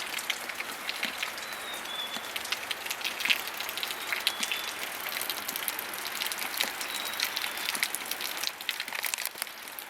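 Heavy wet snow mixed with rain falling and pattering on surfaces: a steady hiss with many small, irregular ticks.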